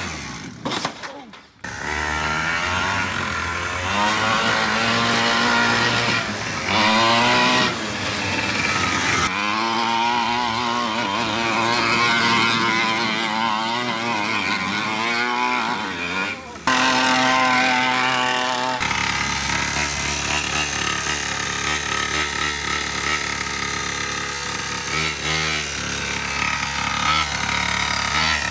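Large-scale gas-powered RC monster truck's small two-stroke engine revving up and down as the truck is driven, its pitch rising and falling again and again. The sound comes in several stretches with abrupt cuts between them.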